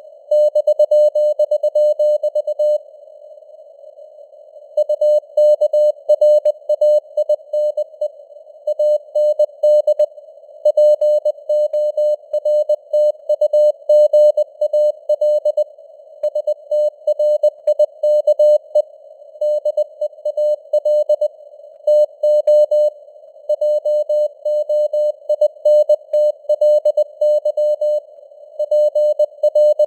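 Morse code (CW) sent at 20 words per minute: a single steady tone keyed on and off in dots and dashes over a narrow band of simulated radio receiver hiss, with the signal strength varying as it fades (QSB). The keying pauses for about two seconds near the start.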